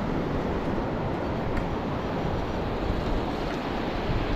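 Surf washing up the beach: a steady, even rush of breaking waves.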